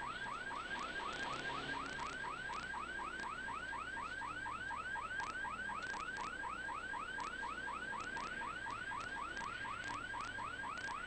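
Electronic siren running in a fast, steady yelp, about five rising chirps a second, heard from inside a moving car over faint road noise.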